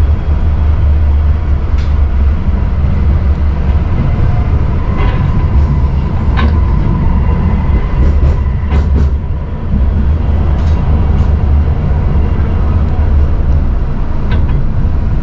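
Tram running along its rails: a loud, steady low rumble with a faint steady whine above it and scattered sharp clicks from the wheels on the track.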